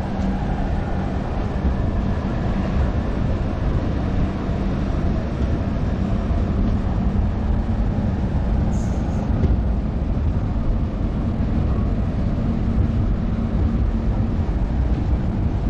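Express passenger train running past on the track: a continuous heavy rumble of wheels and coaches with a steady low hum under it, and a brief hiss about nine seconds in.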